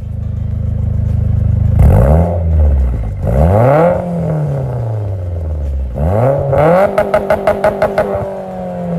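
Car engine being revved: the pitch climbs and falls back three times, and a fast stutter comes near the end.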